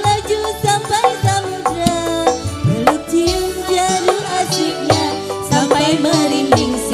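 Campursari song: a woman singing with a sustained, ornamented vocal line through a microphone, over live band accompaniment with regular drum strokes.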